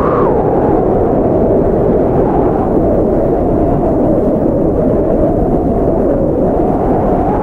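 Blizzard wind blowing hard: a steady low rushing with slow gusts that swell and rise in pitch near the start and again near the end.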